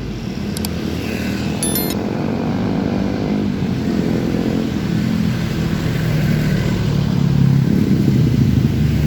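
Motorcycle engine running while riding, its drone slowly rising in loudness and pitch, with road and wind noise. A brief high squeak about two seconds in.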